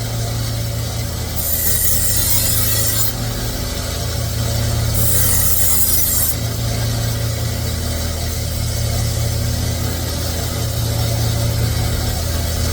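Shun chef's knife being sharpened: the blade is drawn across an abrasive in two hissing grinding passes of about a second and a half each, the first about a second and a half in and the second about five seconds in, over a steady low hum.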